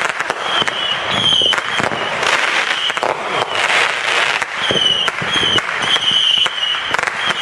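Fireworks going off in rapid succession: dense crackling and popping, with short high whistles recurring throughout.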